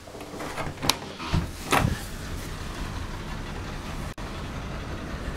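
A door latch clicks and the door is pushed open, then steady wind noise with a low rumble takes over from about a second in.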